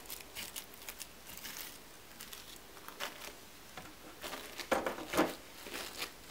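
Faint handling noise as plastic toy horse figurines are moved about: soft rustling and light taps, with a louder patch of rustling about four to five seconds in.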